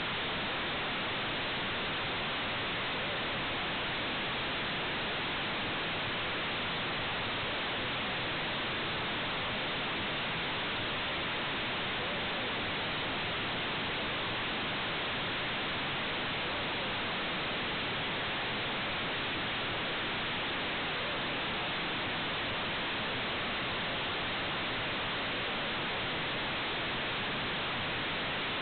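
Steady, even hiss of electronic noise from a security camera's audio channel, unchanging throughout, with no voices or other sounds standing out of it.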